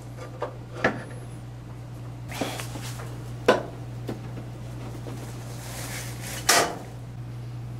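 Steel parts clinking and knocking in a hand arbor press as a sealed ball bearing is pressed onto a T90 transmission input shaft over a hollow steel tube, with a few separate sharp clinks, the loudest about three and a half seconds in and again near the end, over a steady low hum.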